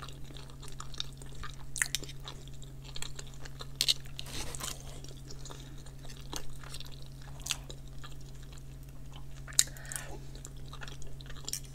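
Close-up chewing and mouth sounds of someone eating a cheese-topped chicken breast, with scattered short clicks from a knife and fork cutting on the plate, over a steady low hum.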